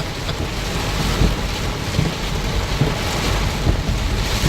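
Torrential rain pelting a moving car, heard from inside the cabin: a steady, dense hiss of rain over a low rumble.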